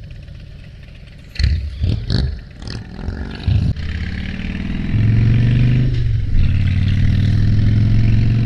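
2007 Harley-Davidson Dyna Street Bob's Twin Cam 96 V-twin running low at first, then a few sharp uneven bursts as the throttle opens. It then accelerates and runs louder and steadily, with a brief dip about six seconds in.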